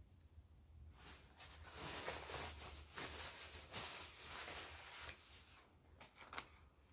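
Paper napkins rustling and crumpling as greasy hands are wiped, a dense crackly rustle from about a second in until past five seconds, followed by a few short paper crinkles near the end.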